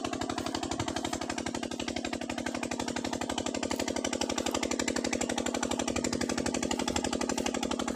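A small engine running steadily: a rapid, even pulse of about a dozen beats a second over a steady hum.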